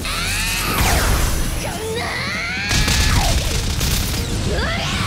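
Anime battle sound effects: loud crashing and booming impacts, with sounds that sweep up and down in pitch, over a music score.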